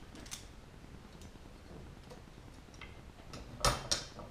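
Faint small metal ticks of 1/8 copper clecos and cleco pliers being handled on an aluminium wing rib, then two sharp metallic clicks close together near the end as a cleco is worked into its hole.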